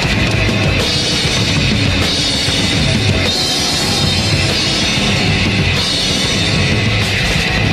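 Loud rock band playing: a drum kit driving along under a distorted electric guitar, a Fender Stratocaster.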